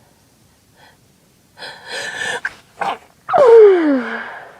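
A woman sneezing: a drawn-out breathy inhale and a quick second inhale, then, about three seconds in, a loud sneeze with a voiced cry that falls in pitch over about a second.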